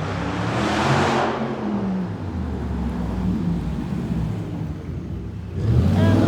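Street traffic: a car passes close by about a second in, followed by the low rumble of vehicle engines, which grows louder again near the end.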